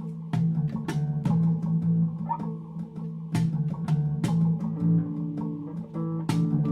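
Background music: guitar with a steady beat of percussion hits.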